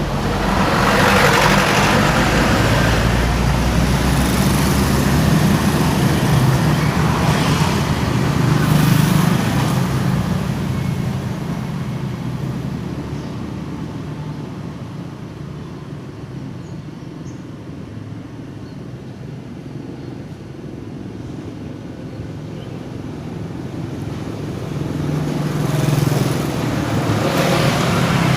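Road traffic passing close by: cars and motorbikes going past, loudest over the first ten seconds and again near the end, quieter in between.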